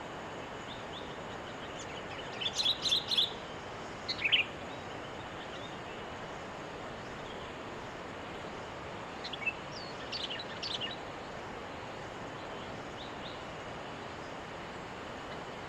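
Sooty-headed bulbul (kutilang) calls: a quick run of about four chirps a couple of seconds in, a short call just after, and another cluster of chirps around the middle, over a steady background hiss.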